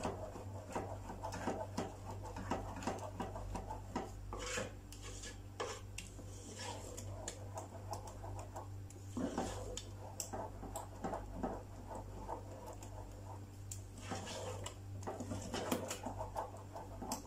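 Wooden spoon scraping and knocking against a metal cooking pot as it stirs a thick, sticky kabisa mixture of flour and milk, in irregular scrapes and taps. A steady low hum runs underneath.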